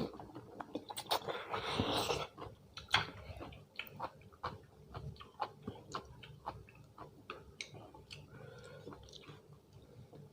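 A person chewing food close to the microphone, with many irregular small clicks and mouth smacks and a louder crunchy stretch about one to two seconds in.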